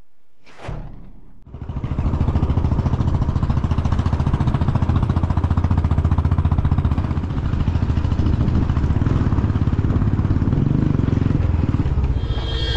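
A brief whoosh about half a second in, then a motorcycle running steadily along a road as heard from the rider's seat: a low, fast-pulsing engine rumble under a wide rushing noise.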